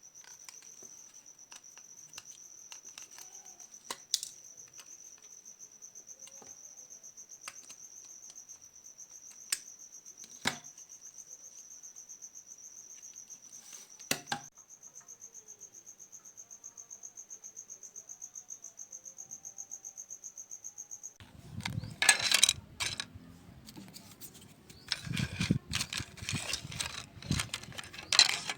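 A cricket trilling steadily on one high note, with a few sharp clicks. About three-quarters of the way in the trill stops and loud, irregular scraping and rubbing strokes take over.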